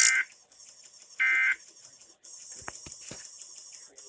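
Emergency Alert System end-of-message data bursts from NOAA Weather Radio: short, harsh two-tone buzzy squawks about a second apart. One ends just after the start and the next follows about a second in, closing the broadcast test. Radio hiss with a few clicks follows from about two seconds in.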